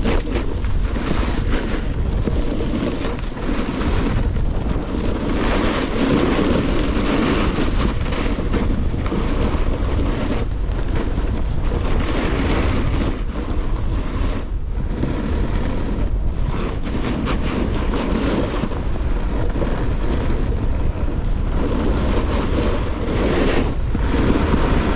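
Wind buffeting the microphone of a moving snowboarder, over the continuous scrape of a snowboard's edges carving on groomed snow. The hiss swells and eases every few seconds as the board turns.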